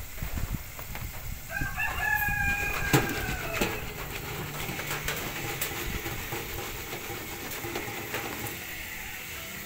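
Hot oil sizzling steadily in a deep fryer as french fries cook, with a sharp metal clink from the fryer basket about three seconds in. A rooster crows once in the background, a held call of about two seconds starting a second and a half in.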